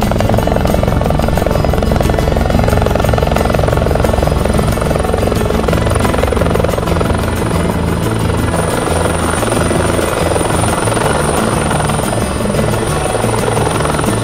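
Bell 412 EP twin-turbine helicopter hovering low, its main rotor beating fast and steadily. A thin, high, steady whine joins about four to five seconds in.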